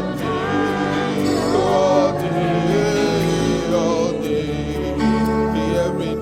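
Live gospel worship music: a band plays a slow worship song while singers' voices hold and glide over it.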